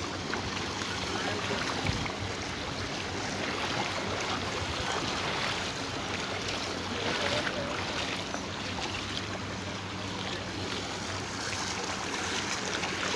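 Feet sloshing and splashing steadily as several people wade through shin-deep floodwater on a street.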